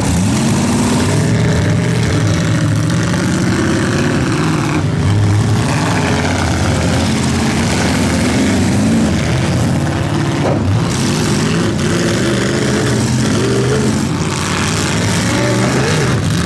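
Several demolition derby cars' engines revving hard at once, their pitches rising and falling over one another as the cars ram and shove each other.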